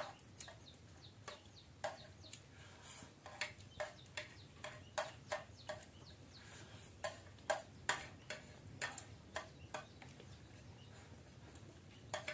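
Metal spoons tapping and scraping against a bowl and a plate during eating: a quiet, irregular run of short clicks, about two or three a second.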